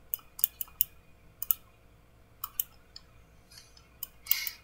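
Sharp clicks from operating a computer at a desk, about a dozen, several in quick pairs, with a brief rustle about four seconds in.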